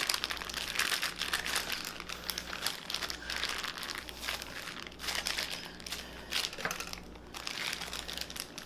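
Plastic bag crinkling and rustling in irregular bursts as it is squeezed and handled to press the air out around a marinating chicken, with a brief lull about seven seconds in.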